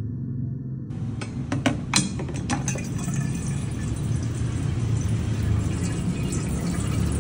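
Water from a dispenser tap running into a 32 oz vacuum-insulated stainless steel bottle, beginning with a few sharp clicks and then a steady pour as the bottle fills.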